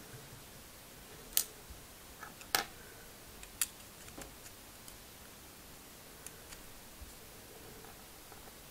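Plastic Lego bricks clicking and knocking as a hand-held Lego puzzle box is worked: three sharp clicks about a second apart in the first half, then a few fainter taps, over a steady hiss.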